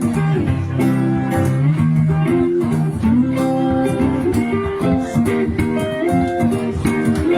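Live band playing the instrumental ending of a rock-and-roll song, guitars to the fore over a steady beat.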